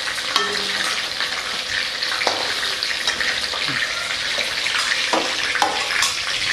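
Hot oil bubbling and sizzling in a kadai as marinated chicken pieces deep-fry. A few clinks and scrapes of a steel slotted spatula against the pan as the pieces are lifted out.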